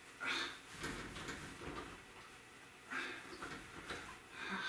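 Cotton towel rubbing a wet long-haired dog's coat during towel-drying after a bath: a few short scrubbing rustles with quieter gaps between, near the start, about three seconds in and near the end.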